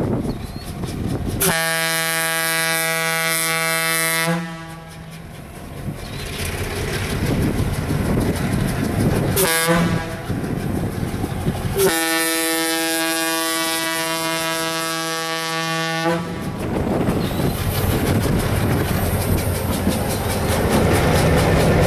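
Diesel locomotive air horn sounding a long blast, a short toot, then another long blast, each a steady chord. Underneath is the rumble of diesel engines and rolling wheels, which grows louder near the end as the locomotives pass close by.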